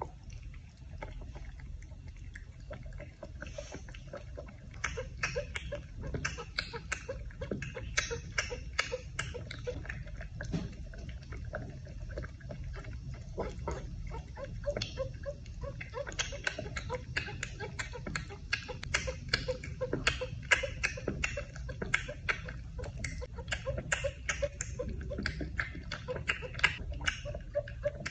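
Grey cat suckling milk from a small feeding bottle: quick, irregular wet sucking clicks and swallows, sparse at first and coming thick and fast from about five seconds in, over a low steady hum.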